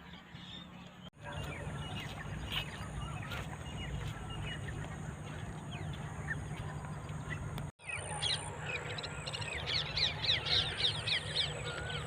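Birds chirping outdoors, a scattering of calls at first and then a dense flurry of quick chirps in the last few seconds, over a steady low rumble. The sound cuts out briefly twice.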